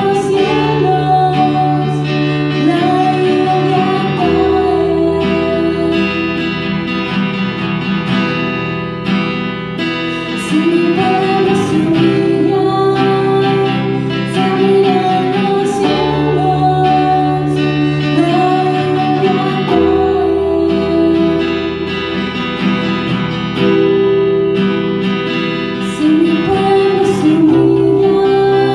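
Live song sung in Spanish: a woman's voice singing over acoustic guitar strumming and keyboard.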